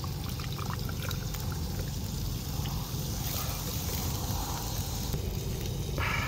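A dark fizzy soft drink poured from a plastic bottle over ice into a glass, trickling and fizzing up into foam. A steady low rumble runs underneath.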